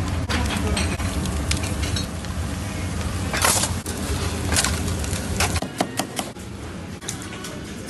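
Chicken skewers sizzling and crackling over a charcoal grill, with a low steady hum underneath. About five and a half seconds in, the hum stops and a knife chops onion on a cutting board in a few sharp taps.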